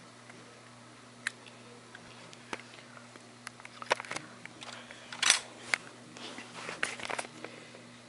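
Camera handling noise: scattered clicks and light rubbing from fingers on the camera body, the loudest click about two-thirds through, over a steady low electrical hum.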